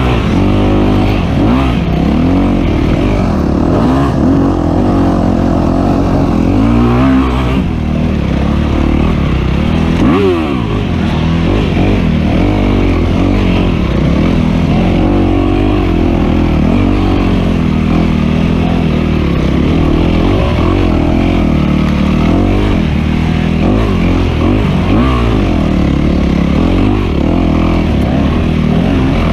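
Dirt bike engine heard close on board, revving up and down constantly with the throttle as the bike is ridden hard off-road. There is a brief dip in level about ten seconds in.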